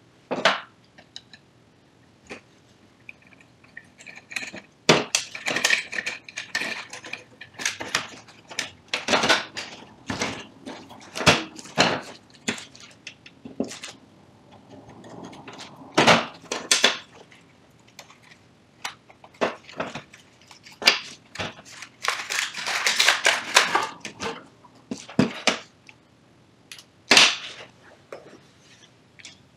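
Irregular clicks, knocks and light clatter of plastic and metal parts being handled as a Canon iR 3570 copier's fixing (fuser) assembly is taken apart by hand, with a couple of longer stretches of rustling.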